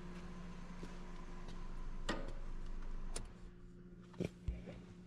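A few sharp clicks and a low knock over a steady low hum, with a background rush that cuts off about three seconds in.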